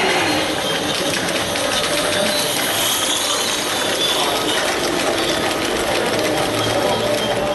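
Gauge 3 live steam model train passing close by: a steady, rapid metallic clatter of its wheels and running gear on the track.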